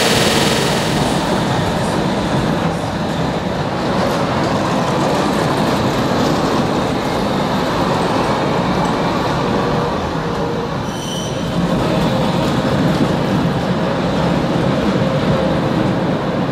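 Modern low-floor TMK 2200 street tram running past close by on in-street rails, a steady rumble of wheels on track, with a brief high tone about eleven seconds in.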